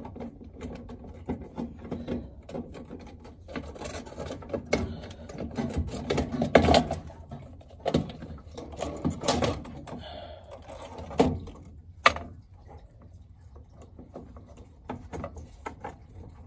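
Irregular knocking, clicking and rubbing of hands working the G35's fuel pump assembly at the tank opening, with a few louder knocks in the middle and a sharp click about twelve seconds in.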